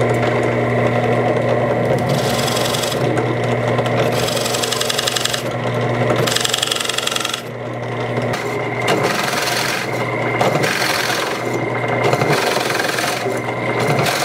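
Central Machinery 8-inch 5-speed bench drill press motor humming steadily at its lowest belt speed while a 2-inch Forstner bit bores into 1/2-inch birch plywood. The cutting comes in repeated scraping spells as the bit is fed down.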